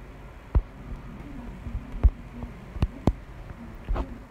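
About five sharp taps at irregular spacing, thumpy and low-heavy, over a faint steady hum.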